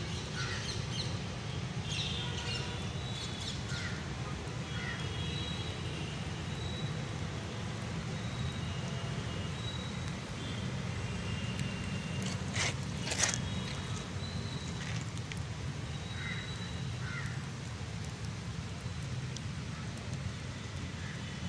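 Outdoor ambience: birds calling and chirping on and off over a steady low rumble, with one brief sharp noise a little past the middle.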